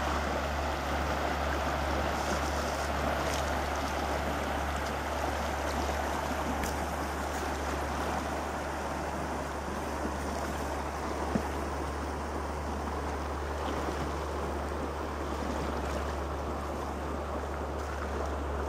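Shallow river running over a gravel riffle: a steady rushing of water.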